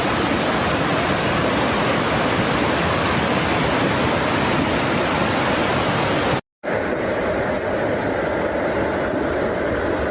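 Steady rush of fast-flowing floodwater, cut off by a brief silent break about six and a half seconds in, after which a similar rushing continues.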